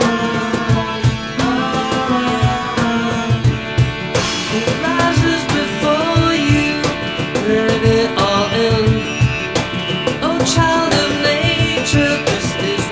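Instrumental passage of a live acoustic psychedelic rock song: a sitar plays a melody with bending, sliding notes over a steady percussion rhythm.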